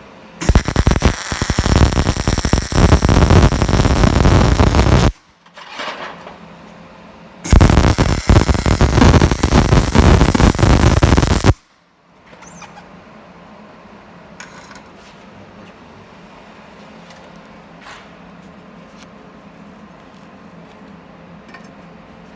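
Welding arc crackling and sizzling in two runs of about four to five seconds each, with a short pause between; after that only a low background hum with a few faint clicks.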